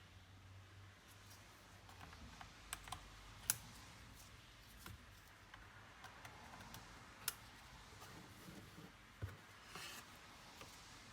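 Faint, sparse clicks and taps from handling a laptop, the sharpest about three and a half seconds in, with a brief scrape near the end.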